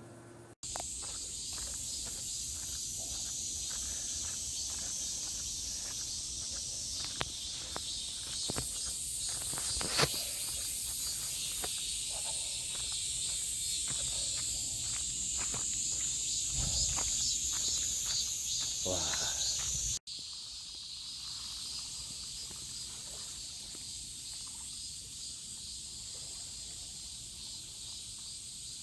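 A steady, high-pitched chorus of insects chirping, with irregular footsteps or taps through the middle stretch. The sound cuts off abruptly twice, once near the start and once about two-thirds of the way in.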